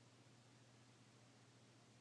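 Near silence: only a faint steady low hum and hiss.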